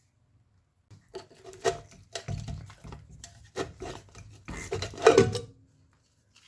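Hand work on the metal of an old air-conditioning compressor, heard as irregular scraping and knocking. It starts about a second in, has its loudest knocks near the end of the working stretch, and stops about a second before the end.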